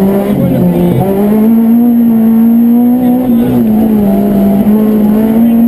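Citroën Saxo rally car's engine running hard at high revs, heard from inside the cabin. The revs dip briefly about half a second in, then climb and hold.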